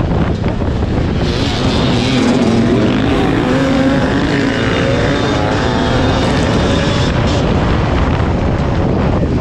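Yamaha WR250 two-stroke single-cylinder dirt-bike engine running hard under race throttle, its pitch rising and falling with throttle and gear changes.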